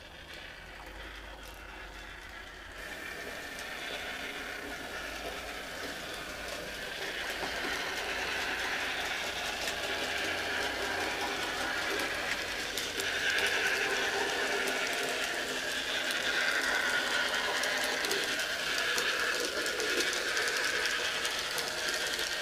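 N gauge model train running on the layout's track: the small electric motor's whine and the rapid clicking of wheels over the rails. It grows louder over the first several seconds and is loudest in the second half as the train nears the camera.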